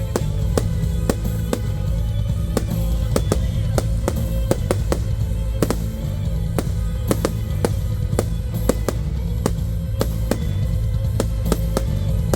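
Fireworks display set to music: a steady music track with a strong bass line, with many sharp firework bangs going off at irregular intervals over it, often several a second.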